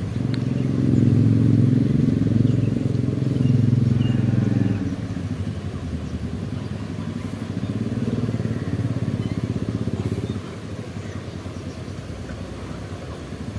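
A motor vehicle engine running, loudest over the first five seconds, then quieter and fading away.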